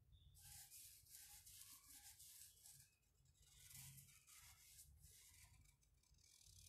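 Faint scratchy strokes of a paintbrush scrubbing paint onto the wooden top of a cable spool, in three spells with short pauses between.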